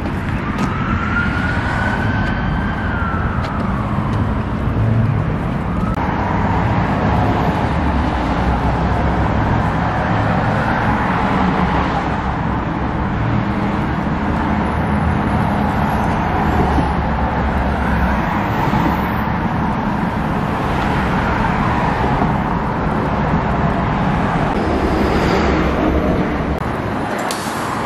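Street traffic noise: cars passing on a road as a steady rushing rumble. A short whine rises and falls in pitch in the first few seconds.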